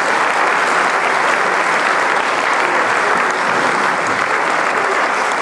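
Audience applauding steadily: a dense, even clapping that follows straight on from the end of the music.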